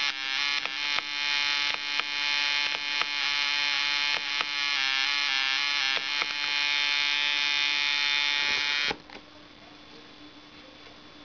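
A steady, high-pitched electric buzz with frequent short clicks through it, cutting off abruptly about nine seconds in and leaving faint hiss.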